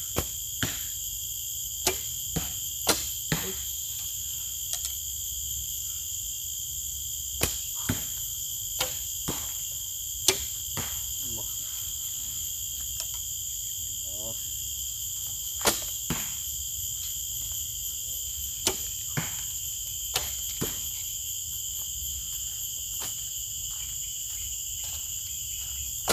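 Traditional horsebows shooting: each bowstring snaps on release, and about half a second later the arrow thuds into a target, repeated for several shots with irregular gaps between them. Behind them, insects keep up a steady high-pitched shrilling.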